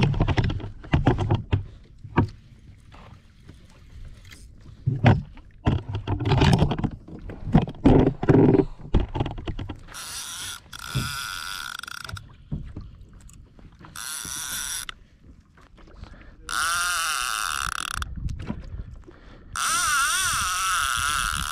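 A run of irregular knocks and clatters, then, from about halfway, a fishing reel's drag buzzing in four bursts of a second or two each as a hooked yellowfin tuna pulls line out.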